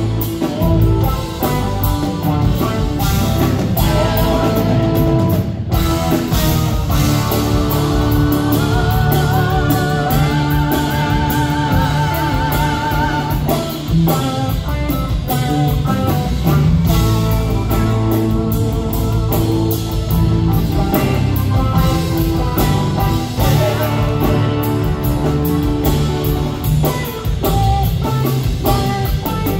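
Live rock band with symphony orchestra playing: electric guitar over organ and drums, with wavering, sustained lead notes a third of the way in.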